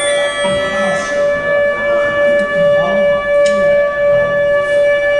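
Live rock band playing, with one long high note held steady in pitch over the band; the held note stops near the end.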